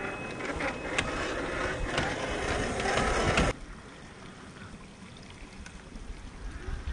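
Traxxas TRX-4 RC crawler truck driving over icy rocks: its drivetrain whirs while its tyres scrape and crunch, with scattered clicks. The sound cuts off abruptly about halfway through, leaving a quieter steady noise.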